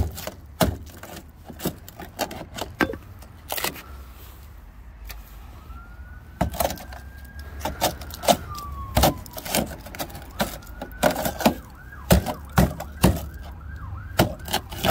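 Claw hammer striking a Talbot Express campervan's rotten steel sill, repeated blows knocking through rust-weakened metal, with a pause of about two seconds around four seconds in. Underneath, a fainter emergency-vehicle siren wails slowly from about five seconds in, then switches to a fast yelp for the last few seconds.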